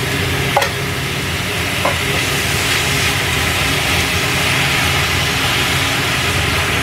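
Shrimp and salted mustard greens sizzling and steaming in a hot stainless steel frying pan just after a splash of water, stirred with wooden chopsticks that clack against the pan twice in the first two seconds. A steady low hum runs underneath.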